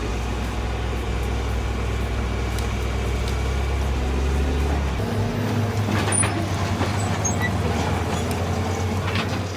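Heavy diesel machinery, a bulldozer and a rescue excavator, running under load during a mud recovery. The low engine note shifts about halfway through, and a few sharp clanks come near the end.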